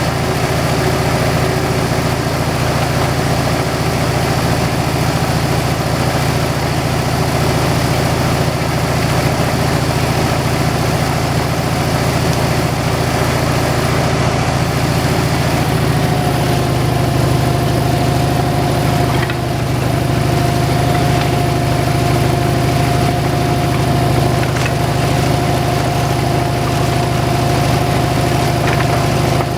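Engine of a homemade slab-wood kindling-cutting machine running steadily, with a steady whine joining about halfway through.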